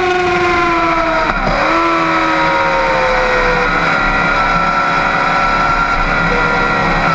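Middleweight sport bike engine heard from onboard at speed, its pitch falling as the bike slows into a corner, with a quick gear change about a second and a half in; from about four seconds in it holds a steady engine speed through the corner. Wind noise runs under the engine.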